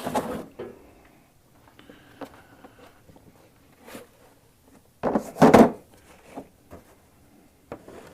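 Knocks, scrapes and clatter as a hydraulic hose crimper kit is handled and fetched. There is a loud scraping knock at the start and a louder cluster of two or three knocks about five seconds in, with small clicks between.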